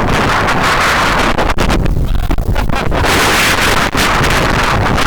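Strong wind buffeting the microphone: a loud, continuous rush with heavy low rumble, dipping briefly about two seconds in and again near four seconds.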